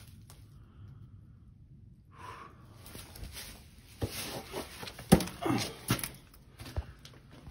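Footsteps on a debris-strewn floor: quiet at first, then several sharp knocks and scrapes from about four seconds in.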